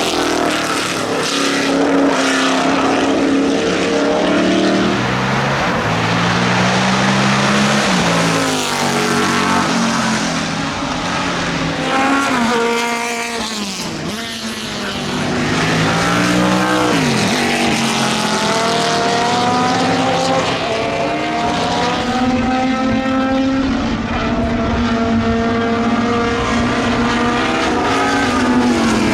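Lola T70 Mk3B's Chevrolet V8 racing engine accelerating hard through the gears: the pitch climbs, then drops back at each upshift, several times over. About halfway it briefly quietens and falls in pitch as the car passes, then climbs again.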